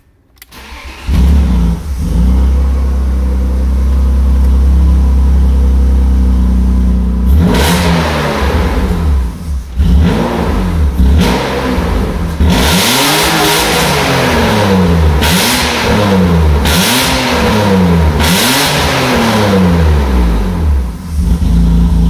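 BMW E36's engine starts about a second in and idles, then is revved repeatedly, about seven quick rising-and-falling blips, before it settles back to idle near the end. The exhaust is leaking.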